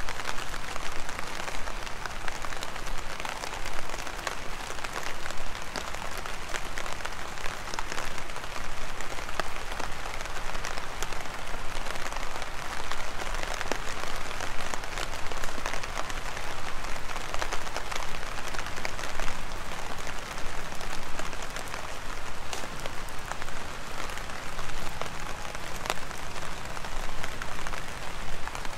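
Heavy rain falling: a steady hiss dotted with many sharp, irregular drop ticks.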